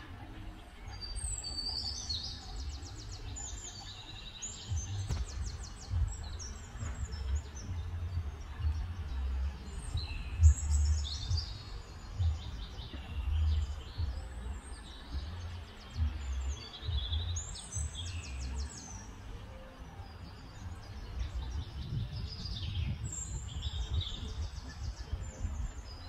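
A songbird singing repeated short, high phrases with fast trills, a new phrase every few seconds, over a steady low rumble.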